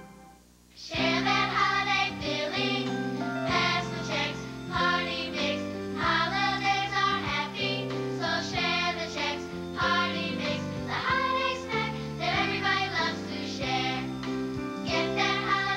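Commercial jingle: voices singing over bright music, starting about a second in after a brief silence.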